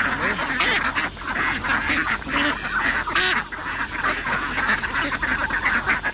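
A flock of domestic ducks quacking and chattering together without pause, many short calls overlapping, as they are fed duckweed.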